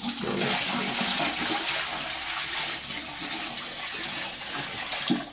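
A bucket of water poured into a bathtub, splashing onto the tub floor and running down the drain; the pour stops just before the end. The water drains away freely, a sign that the drain-opener treatment has cleared the clog.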